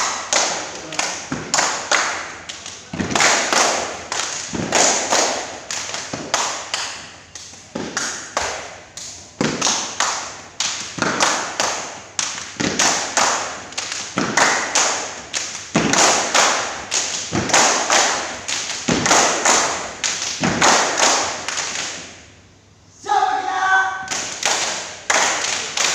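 A group performing body percussion in unison: rhythmic hand claps, thigh slaps and boot stamps on a concrete floor, many beats each second. It breaks off for about a second some 22 seconds in, then voices shout over the resumed beat.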